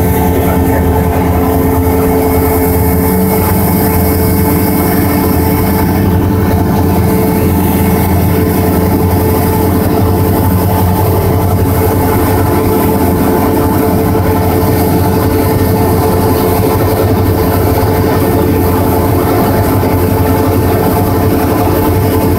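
Cessna 172's piston engine and propeller running steadily as a loud drone, heard inside the cabin. Its tone shifts slightly about three seconds in.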